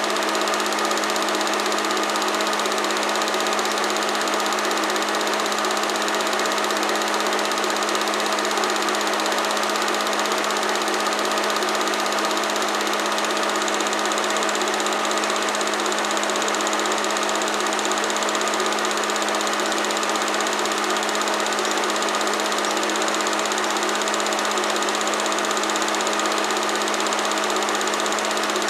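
Home-movie film projector running: a steady motor hum with an even mechanical whir and hiss.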